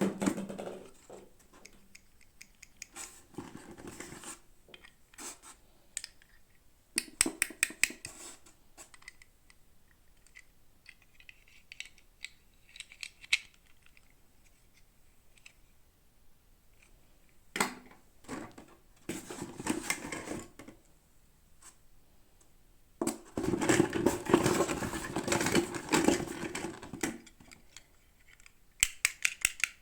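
Toy packaging being handled and opened by hand: bursts of plastic crinkling and rustling broken by quick runs of clicks, with a long, loud stretch of rustling in the second half.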